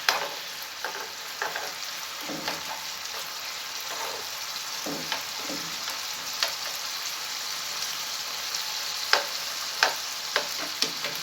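Calamari pieces sizzling in a frying pan as they give off their water, a steady hiss with scattered sharp pops. A few stirring strokes in the first seconds.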